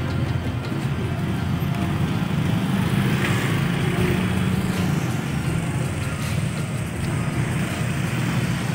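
Steady traffic noise from motor scooters and other vehicle engines running close by.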